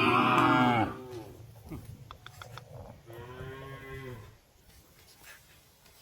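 Cows mooing: a loud moo falls in pitch and ends within the first second, then a second, quieter moo comes about three seconds in.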